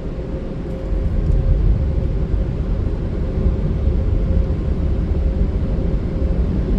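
Ryko Vortex car wash dryer blowers running, a steady low rumble from inside the car that gets louder about a second in, with a steady hum above it.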